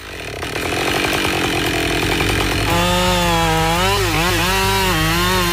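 Husqvarna 572 XP two-stroke chainsaw running at high revs while cutting into a tree trunk. From about halfway through its engine note becomes clearer and wavers up and down as the chain takes load.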